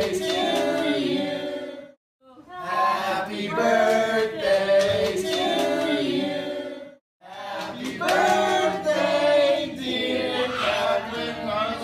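A group of people singing together, broken twice by short gaps of silence about two and seven seconds in.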